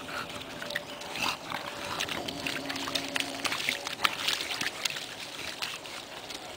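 A bulldog wading through a shallow muddy puddle: irregular splashes and squelches of its paws in water and wet mud.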